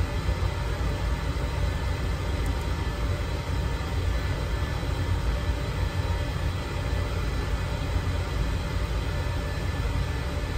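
Air compressor running with a steady low rumble.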